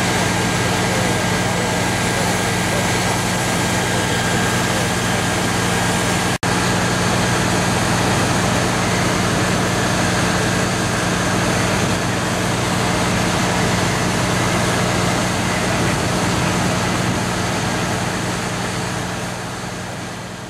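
Steady drone of heavy diesel machinery running, with a constant low hum, as the truck-mounted hydraulic crane handles a drill rod. The sound breaks off for an instant about six seconds in, then fades out near the end.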